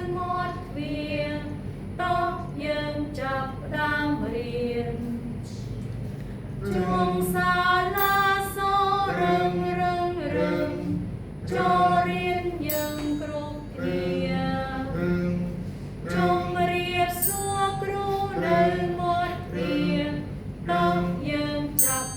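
Several voices singing a Khmer children's song about the school bell together, in sung phrases with short breaks between them.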